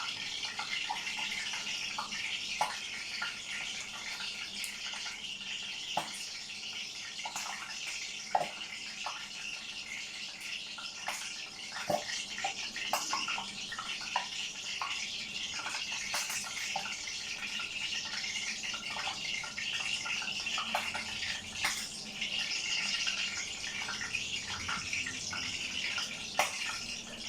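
Breaded chicken thigh pieces frying in hot oil: a steady sizzle with scattered pops and crackles.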